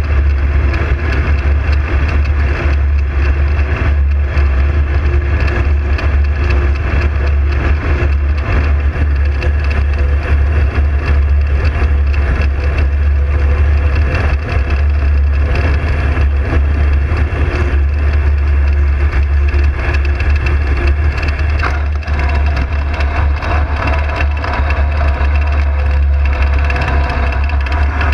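Ultralight aircraft in flight: loud, steady wind buffeting on the onboard camera's microphone over the drone of the engine and propeller. The low rumble is constant, and the engine's pitched hum stands out a little more in the last few seconds as the aircraft comes down to land.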